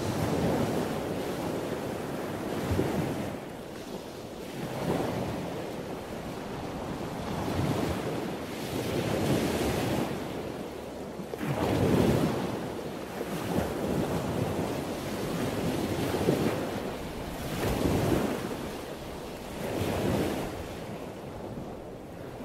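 Ocean surf washing onto a beach, rising and falling in surges about every two seconds.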